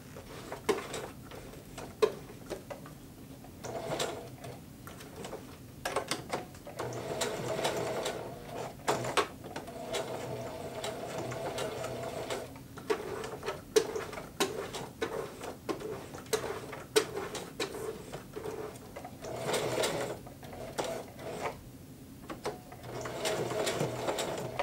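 Singer Heavy Duty household sewing machine stitching a zipper tab in several short runs, starting and stopping, with sharp clicks in the pauses between runs.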